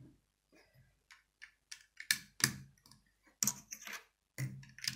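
Plastic Lego bricks clicking and clattering as pieces are handled and pressed onto a model, a string of irregular sharp clicks and light knocks.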